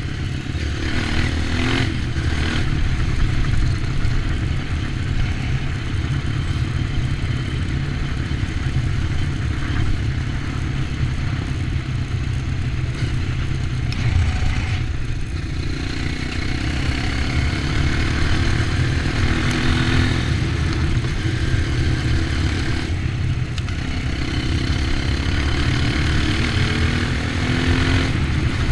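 Off-road dirt bike engine running as it is ridden, the revs rising and falling repeatedly.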